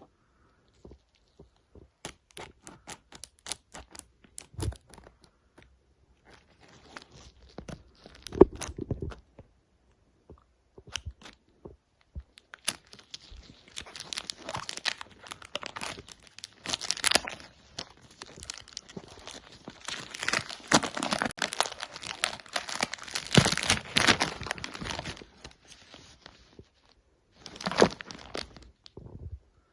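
Perfume box packaging being unwrapped by hand: a string of light clicks and taps, then a long stretch of tearing and crinkling of the wrapping, and a last short rustle near the end.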